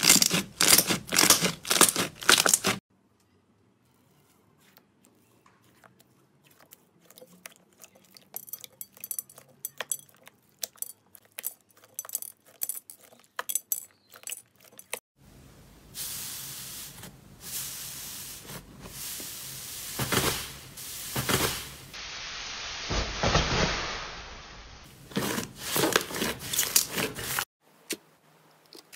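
Hands pressing, squishing and pulling slime, giving fast sticky crackles and clicks. The sound comes in a few short pieces with sudden cuts: loud for the first few seconds, much fainter clicking until about halfway, then a denser crackle.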